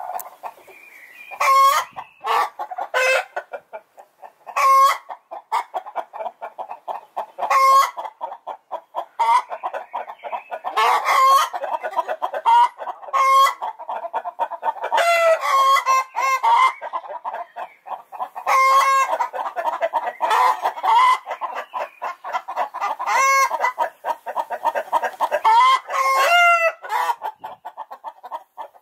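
Hens cackling: fast runs of short clucks broken every second or two by loud, drawn-out squawks.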